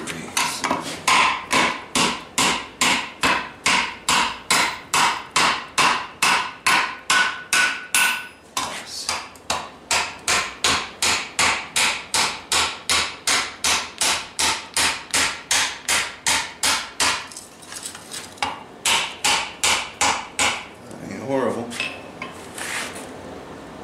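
Hand hammer striking red-hot steel on an anvil in a steady rhythm of about three blows a second, each blow ringing. The hammering breaks briefly about eight seconds in, stops for a moment near seventeen seconds, resumes for a few more blows, and ends with a few scattered lighter knocks.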